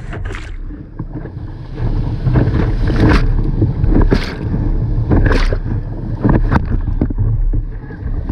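Shallow whitewater rapids rushing over rocks right at the microphone, with a heavy low rumble. From about three seconds in, splashes hit the microphone about once a second.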